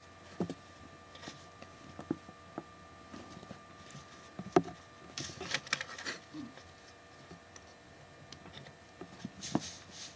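Kittens moving about in a soft white play tube: scattered light taps and rustles, with a brief flurry of rustling about five seconds in.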